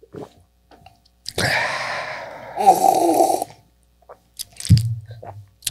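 A person's long, breathy exhale while tasting Wild Turkey 101 Rye whiskey, followed a couple of seconds later by a short, low hum.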